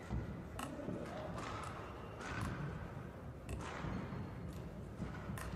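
Sports-hall ambience in a pause between badminton rallies: scattered light thumps and taps, several over a few seconds, over a low steady background.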